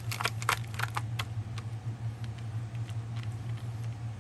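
Small glass beads and their packaging being handled, giving light clicks and taps, several in the first second and then sparse ones, over a steady low hum.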